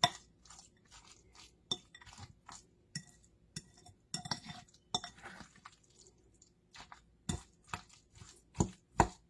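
A spoon stirring chicken salad in a bowl, clinking against the bowl in irregular taps, with a few louder knocks near the end.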